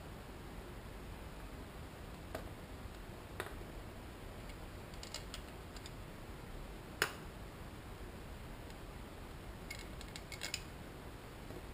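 Scattered small clicks and ticks of hand tools and engine parts being handled, over a faint steady hiss. The sharpest click comes about seven seconds in, with quick runs of light ticks around five seconds and near the end.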